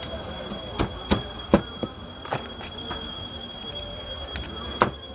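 Sharp knocks of a knife chopping fried chicken on a cutting board: a quick run of about five in the first half, then one more near the end. A steady high-pitched whine sounds beneath them throughout.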